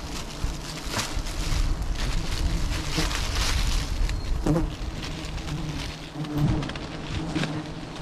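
Bees buzzing around a wild nest in a steady hum, with irregular rustles and knocks from branches being handled.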